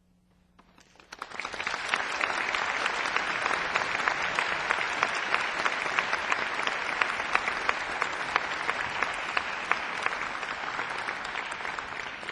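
Audience applauding. It starts about a second in after a brief hush, holds steady, and eases off slightly near the end.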